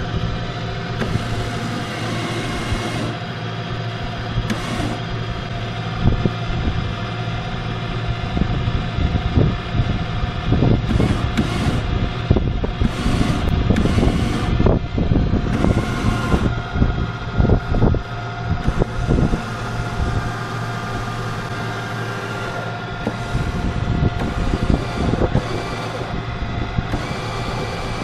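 Small electric boat motor running with a steady hum, while wind gusts buffet the microphone.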